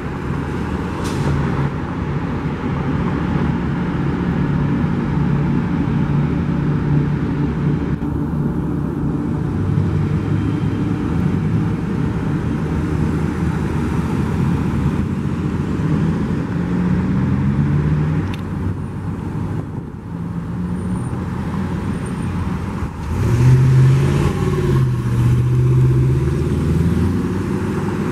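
Road traffic at a busy city intersection: car and truck engines running, idling and pulling away, with one vehicle's engine louder and rising in pitch about three quarters of the way through.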